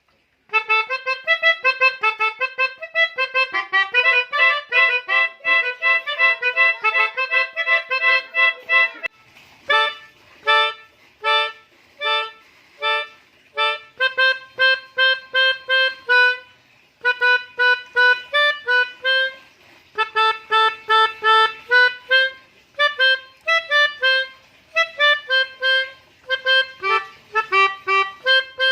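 Pianika (melodica) playing a telolet basuri bus-horn tune in short, detached notes. For the first nine seconds or so several notes sound together; after that it plays quick runs of repeated notes with short pauses between phrases.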